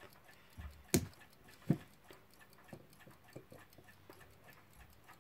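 Faint, steady ticking of a mechanical clock, with two sharper clicks of small metal clock parts being handled, about a second in and again just under a second later.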